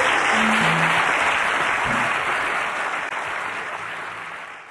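Audience applauding, dying down gradually toward the end.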